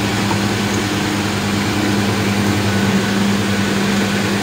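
Engine idling steadily, an even low hum with no changes.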